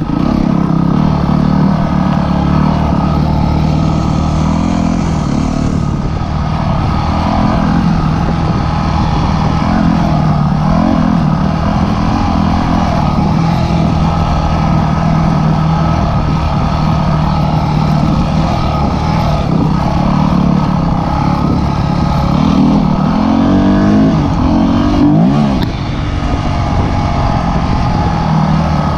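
Dirt bike engine running under way, its pitch steady for most of the time and then rising and falling a few times with the throttle near the end.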